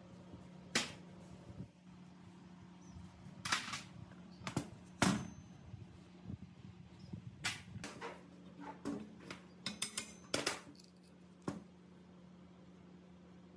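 Irregular knocks and clicks of metal parts being handled, about fifteen sharp hits bunched in the middle, over a low steady hum.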